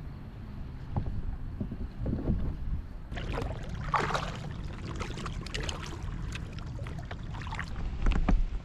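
Water splashing and trickling around a kayak on a river, a dense crackle that starts about three seconds in, over a steady low rumble.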